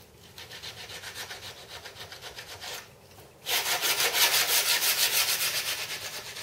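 Hand sanding: sandpaper rubbed in quick short strokes along the knife-cut edge of a moulded fibreglass model wing skin, taking off the lip the knife left. A softer run of strokes, a short pause about three seconds in, then a louder run.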